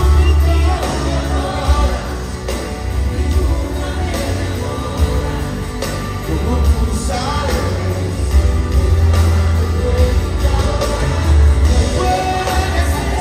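Live band performance of a Latin pop ballad: a male lead vocal over acoustic guitar, drums, percussion and keyboards, with a heavy bass. It is heard through the arena PA from the audience.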